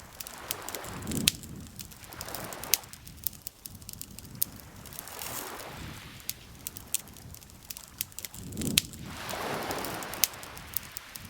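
Campfire crackling with frequent sharp pops, over lake water lapping in slow swells every few seconds.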